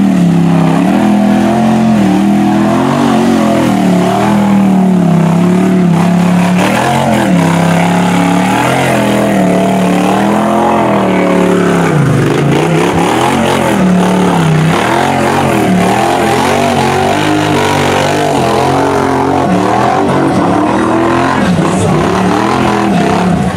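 An ATV engine held at high revs while the machine ploughs through a deep mud hole. Its pitch keeps surging up and down as the throttle is worked.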